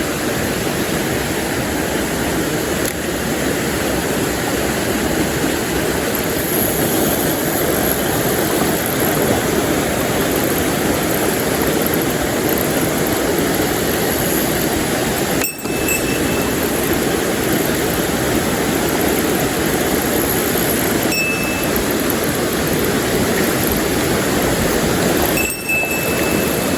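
Steady rush of water in a small mountain stream, broken briefly twice.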